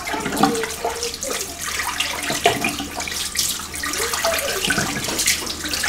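Tap running into a sink with water splashed by hand over the head to rinse it, an uneven stream of splashing.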